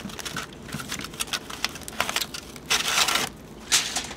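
Aluminium foil crinkling and crackling in irregular bursts as it is peeled off and crumpled from a grilled steak's rib bone, loudest a little before the end.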